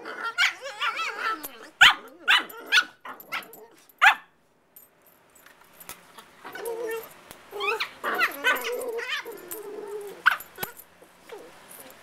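Two Cavalier King Charles Spaniel puppies vocalizing while play-fighting. A quick run of short, sharp yelps and barks fills the first four seconds. After a short pause come lower, wavering grumbling noises, with one more sharp yelp near the end.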